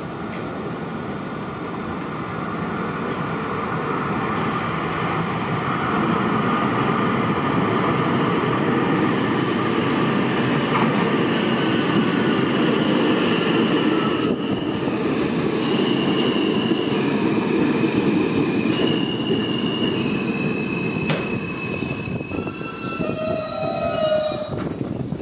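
An R160B Alstom subway train pulling into the station and braking to a stop: a heavy rumble of wheels on rail that grows louder as it comes in. Over the second half the train's whine moves through a series of steady pitch steps as it slows.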